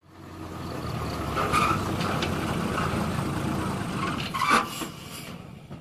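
Old cargo truck's engine idling with a steady low rumble, with a brief sharper sound about four and a half seconds in; the rumble drops off near the end.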